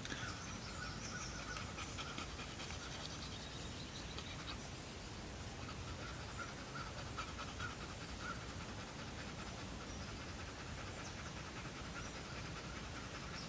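A dog panting steadily and faintly, the heat-driven panting of a dog lying in hot sun.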